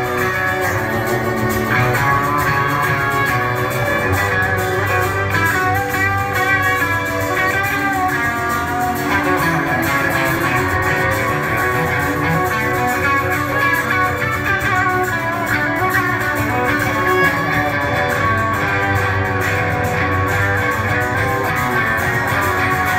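Live band playing, with an acoustic guitar strumming, an electric guitar and a bowed violin.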